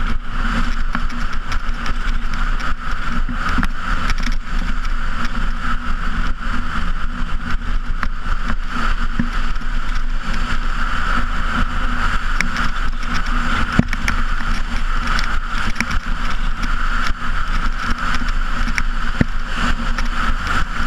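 Racing bobsleigh speeding down an ice track, heard from a camera on the sled: a steady rushing, rumbling noise of the runners on the ice with frequent sharp knocks and rattles from the sled.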